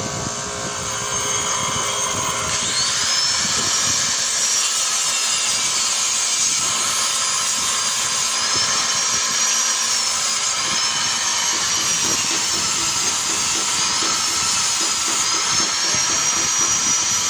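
Bench grinder wheel grinding a hand-held tool bit: a steady high hiss with a thin whining tone that rises and falls as the bit is pressed and moved against the wheel.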